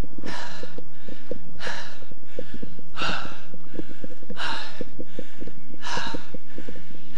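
A jogger's heavy breathing, a loud breath about every second and a half, over the steady thud of his running footfalls.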